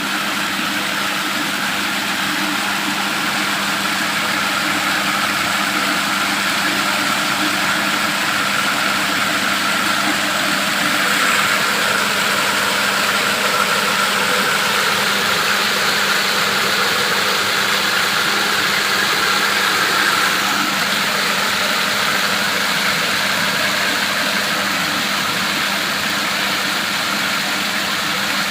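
A machine running steadily with a constant hum and a noisy whir, swelling slightly about midway.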